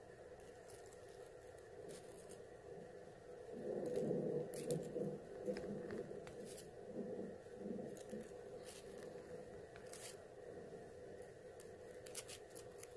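Close scratching and rustling against the microphone, with scattered sharp clicks, from metal finger-claw tips and long hair brushing and tapping over it. It is heaviest between about four and eight seconds in.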